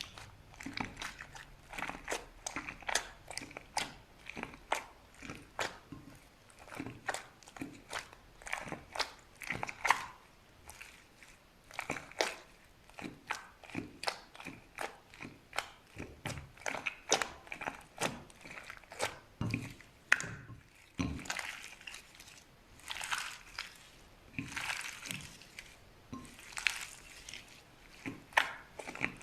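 Slime being pressed and worked, making a quick, irregular run of sharp crackling pops and clicks, with a few longer squelching sounds near the end.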